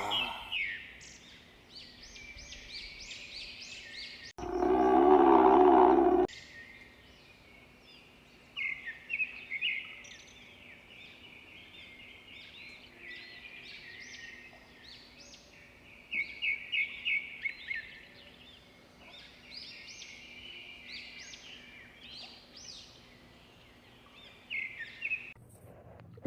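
Small birds chirping in short, rapid high calls throughout, with one louder low pitched growl lasting about two seconds, starting about four seconds in.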